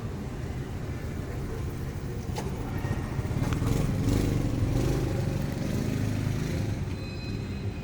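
A road vehicle's engine passing, a low rumble that swells in the middle and then fades.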